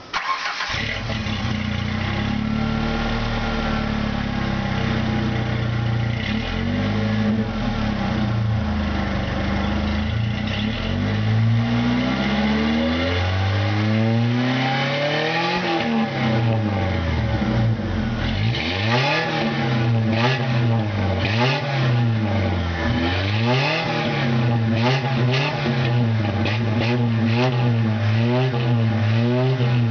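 1993 Ford Mustang's 2.3-litre four-cylinder engine heard at the tailpipe. It idles with a slightly wavering pitch, then from about halfway through is revved up and down again and again in quick blips.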